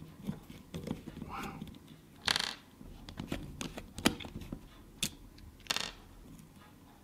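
A small screwdriver backing tiny screws out of an odometer's stepper motor: scattered light clicks and taps, with two short metallic clinks, about two seconds in and again near the end, as the loosened screws are dropped onto a wooden tabletop.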